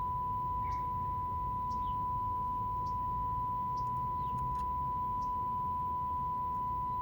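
Steady, unbroken test tone from a Nordmende Caruso console tube radio tuned to the signal generator's FM test signal. The radio is reproducing the signal's modulation as one pure pitch over a low hiss.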